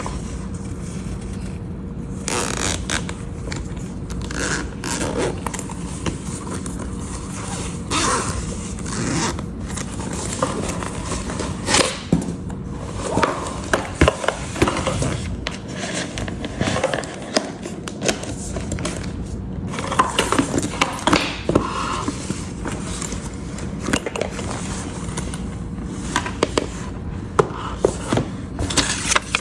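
Hands handling a new laptop and its packaging: scraping and rustling, with many small clicks and taps, more frequent in the second half.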